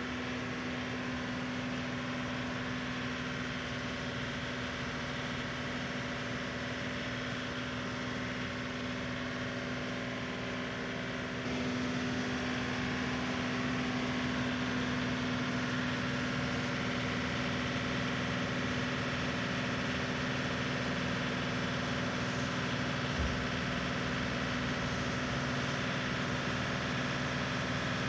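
John Deere 3038E compact tractor's three-cylinder diesel engine running steadily as the tractor brings its loader forks up to the load. It gets louder about a third of the way in, and there is one low thump some two-thirds of the way through.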